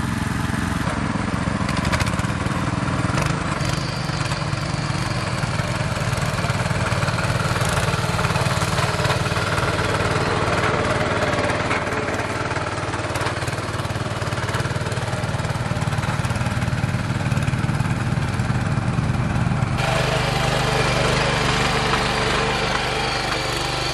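Ruris 731K ACC power tiller engine running steadily under load while pulling a plough through soil. The sound changes abruptly about twenty seconds in.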